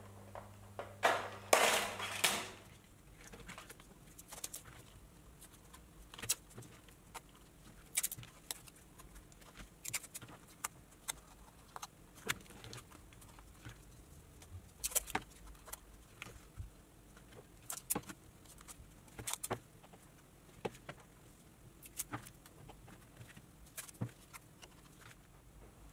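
Thin 0.4 mm brass sheet rattling and crunching as it is cut with hand snips, loudest for about a second near the start. Then scattered light clicks and taps as the brass strip and its paper template are handled on a table.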